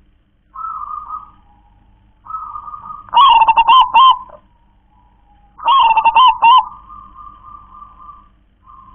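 Zebra dove (perkutut) singing: two loud phrases of quick, rolling coos, with softer drawn-out notes before and after them.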